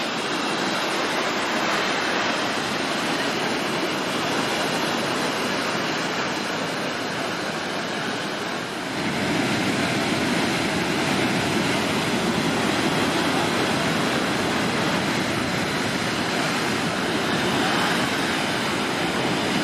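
Rough sea in a storm: a continuous rush of breaking surf, growing a little louder and fuller about nine seconds in.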